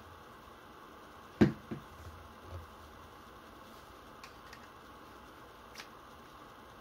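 Handling noise from a Tokyo Marui SAA.45 model revolver worked in gloved hands: one sharp knock about a second and a half in, a lighter one just after and a soft thump, then a few faint clicks.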